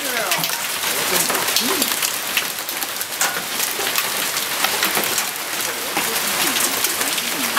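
Hail and rain falling on a patio: a steady dense hiss full of quick, sharp ticks of stones striking.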